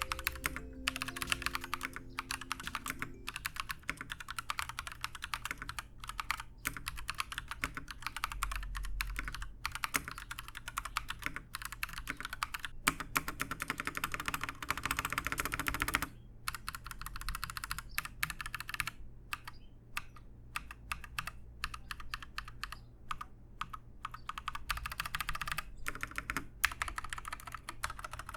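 Typing on an Akko 3087 DS Midnight mechanical keyboard with Akko Pink linear switches: a rapid, continuous clatter of keystrokes, broken by a few short pauses.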